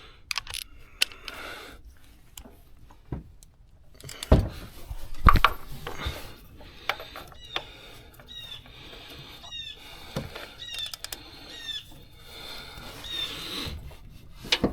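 Hand tools working on a minivan's belt tensioner and pulleys: two sharp metallic knocks about a second apart, then a run of short, high chirps repeating every half second or so.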